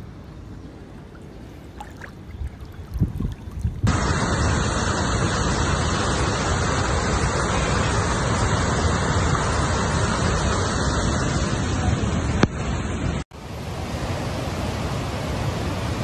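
Rushing floodwater: a low rumble with a few knocks, then an abrupt cut at about four seconds to a loud, steady roar of water, broken by another sudden cut about thirteen seconds in.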